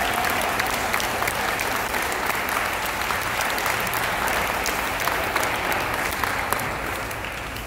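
Applause: many hands clapping steadily, tapering off near the end.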